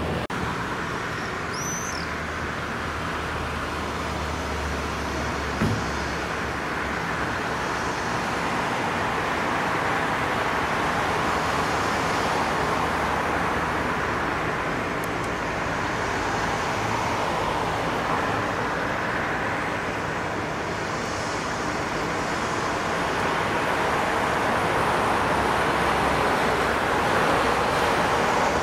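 Passing road traffic: a steady rush of tyres and engines that swells and fades as vehicles go by. There is a single short knock about six seconds in.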